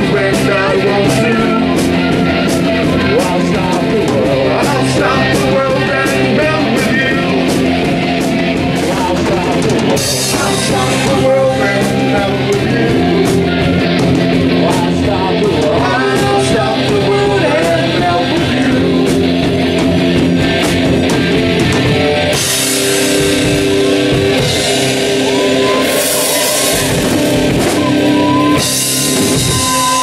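Live rock band playing loud, with a singer, distorted electric guitars and a drum kit. About three-quarters of the way through, the playing changes to long held chords under crashing cymbals.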